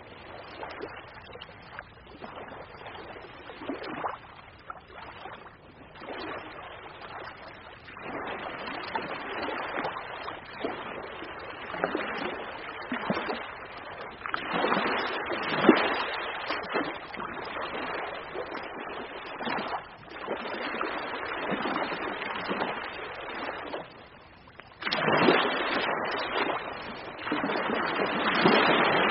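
Ocean waves breaking and washing in, rising and falling in irregular surges every few seconds. A short lull comes shortly before the end, followed by one of the loudest surges.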